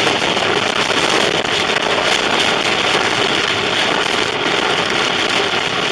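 Steady, loud rush of storm wind and rain mixed with road noise, heard from inside a moving car's cabin.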